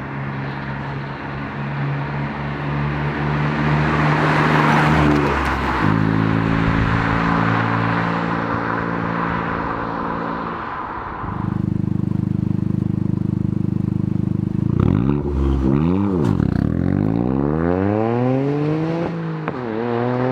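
Toyota GR Yaris 1.6-litre turbocharged three-cylinder engine running through a Milltek non-resonated GPF-back exhaust: steady revs at first, then the revs dip and climb as the car accelerates, with an upshift near the end and the pitch rising again.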